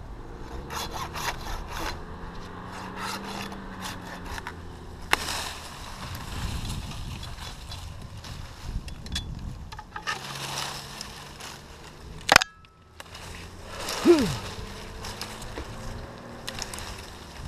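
Pruning saw cutting through an oak limb in runs of quick back-and-forth strokes. A single sharp crack comes about twelve seconds in, and a short falling squeak follows just after.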